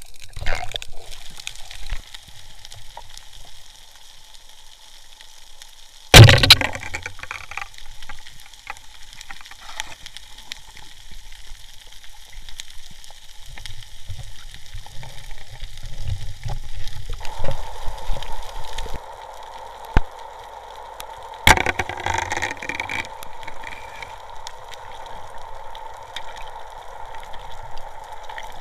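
Underwater crackling and hiss, with a single loud sharp crack about six seconds in and a few sharper clicks later. A steady hum comes in past the middle.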